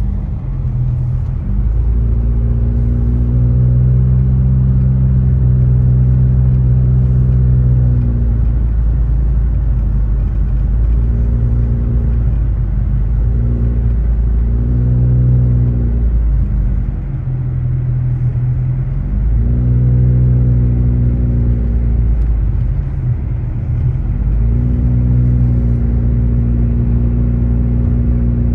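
Car driving on a snowy road, heard from inside the cabin: a steady low engine and tyre rumble, with a droning hum that swells in and fades out about four times as the engine load changes.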